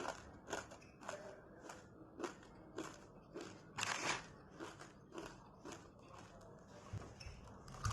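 Murukku, the crisp fried South Indian snack, being chewed close to the microphone: a steady crunching about twice a second, with one louder crunch about four seconds in.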